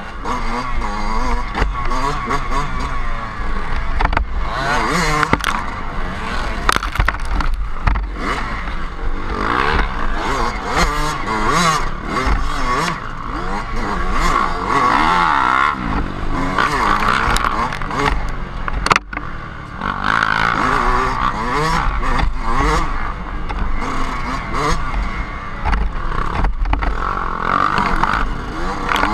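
Dirt bike engine revving up and down continuously as it is ridden hard along a wooded trail, with scattered knocks and scrapes from the bike and brush, and wind buffeting the helmet camera.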